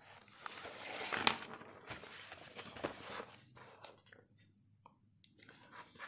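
Paper rustling and rubbing as an open textbook and a notebook are shifted and pressed flat by hand, with a few light knocks. After about three and a half seconds it dies down to occasional small clicks.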